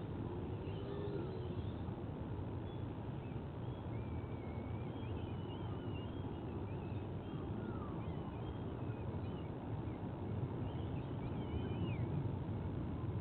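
Steady low rumble, with faint, short, high bird chirps scattered across it.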